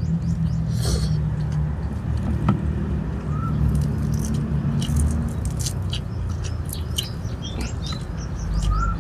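Small birds chirping again and again over a steady low rumble. Between about five and seven seconds in come a few short, crisp clicks and smacks from a person eating dried fish and rice.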